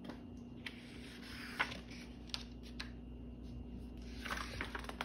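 A page of a hardcover picture book turned by hand: soft paper rustles and small clicks, with a brief swish about a second and a half in and a flurry of rustling near the end.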